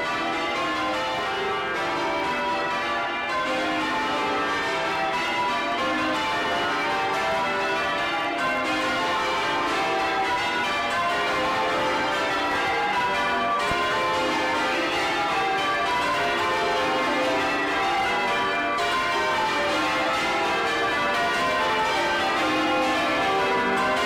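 Change ringing on the 1932 Taylor ring of twelve bells, whose tenor is in C, heard close up inside the bell chamber. The bells swing full circle and strike in a continuous stream of overlapping notes at an even loudness.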